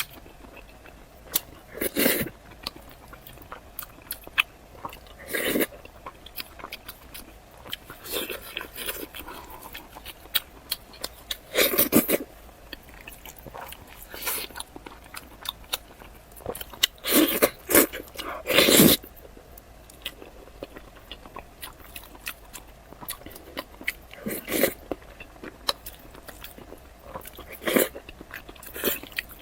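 Close-up eating sounds from a pork knuckle rice bowl: bites and chewing that come in short, sharp bursts every few seconds, some of them crunchy.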